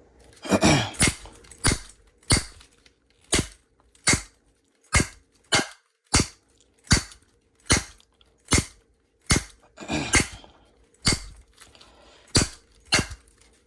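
A padlock being struck over and over with a piece of wood: a steady run of sharp knocks, roughly one every two-thirds of a second, from an attempt to break the lock by impact.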